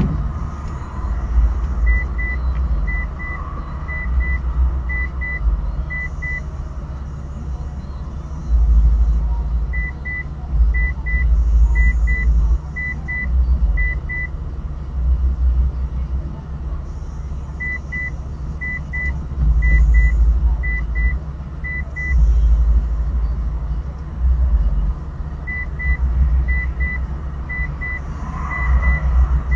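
Low, steady rumble inside a car idling at a stop, with a turn-signal indicator ticking: a short double tick about once a second, in runs of about five separated by pauses of a few seconds.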